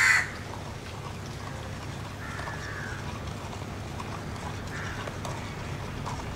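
A wooden stick stirring thick, water-soaked red soil in a plastic tub: faint wet squelches and knocks, beginning with a short loud rush at the very start.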